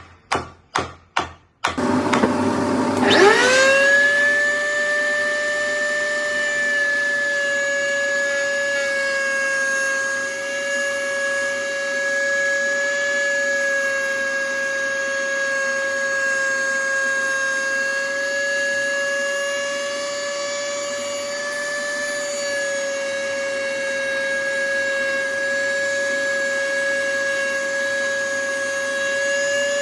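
Four quick knocks, then an electric router in a router table switches on, its motor whine rising over about two seconds to full speed and running steadily at a high, even pitch.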